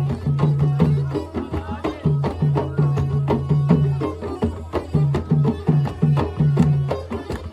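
Background music: traditional Middle Eastern-style folk tune with hand-drum percussion and a steady beat.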